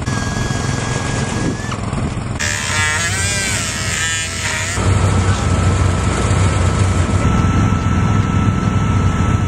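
Power-tool and motor noise across quick cuts: about two seconds in, a cut-off wheel whines, its pitch bending up and down as it cuts into the DC-3's aluminium fuselage skin. Before and after it, a loud, steady low motor drone.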